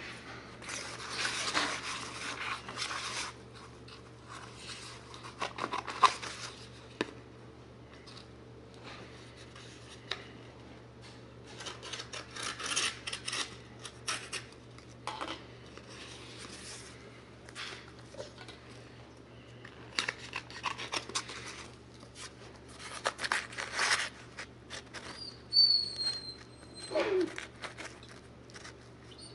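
Shag carpet being handled and worked by hand for a patch repair: rustling, rubbing and scraping of the pile and backing, with snips and clicks, coming in short bursts with pauses. A dog gives a brief high whine near the end.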